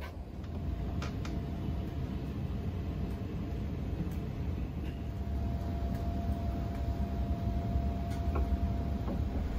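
Steady low mechanical hum with a faint high tone running through it, and a few light clicks.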